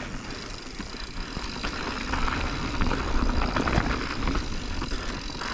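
Mountain bike rolling over rough singletrack: tyre noise on dirt and rattling of the bike, with many small knocks from bumps and a low rumble of wind on the camera microphone. It gets louder about two seconds in.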